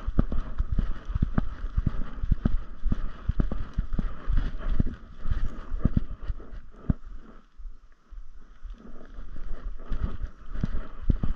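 Footsteps along a wooded trail: irregular thuds, two or three a second, over low rumble from camera movement. They stop briefly about two-thirds of the way through.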